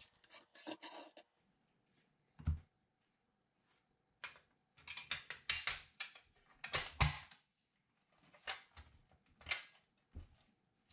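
Faint, scattered clicks, scrapes and knocks of an airsoft MG42's plastic and metal parts being handled as the tapered outer barrel is slid out of the receiver and set down on the table. The heaviest thuds come about two and a half and seven seconds in.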